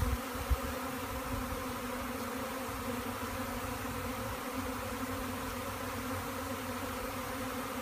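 Steady buzzing hum of a large honey bee swarm clustered on a tree, heard close up.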